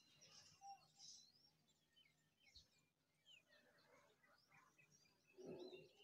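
Faint chirping and twittering of small birds, many short high calls scattered throughout, with a brief louder low sound near the end.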